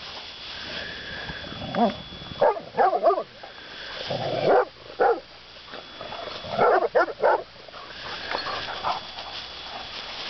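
Dogs barking during play, in several short bursts of quick barks spread through the middle, with the loudest clusters about three and seven seconds in.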